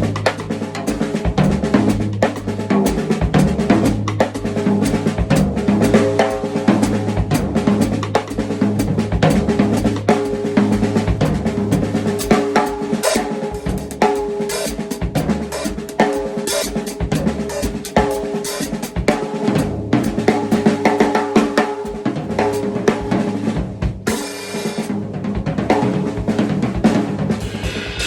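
Drum kit played continuously: a groove on bass drum and snare, with the hi-hat pedal stepped closed on every quarter note.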